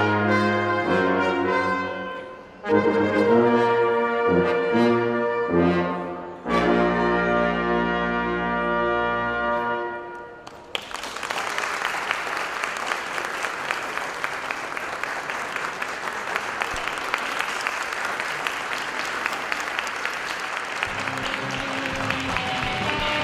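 Brass ensemble of trumpets and trombones playing a holiday piece, ending on a held chord that fades about ten seconds in. Audience applause follows and goes on steadily, and a few musical tones come in near the end.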